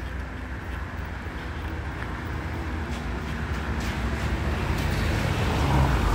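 Road traffic on a wet street: a motor vehicle approaching, its noise growing steadily louder toward the end, over a constant low rumble.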